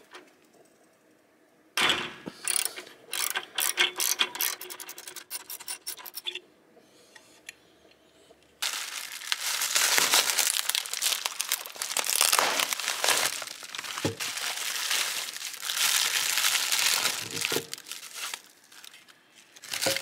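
A socket ratchet wrench clicking in quick runs of ratchet clicks for several seconds. Then a plastic mailer bag is torn open and the packing plastic and bubble wrap inside are crinkled and rustled at length.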